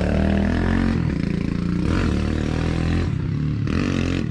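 Kawasaki KLX pit bike's small single-cylinder four-stroke engine running at low revs, its pitch rising and falling a little.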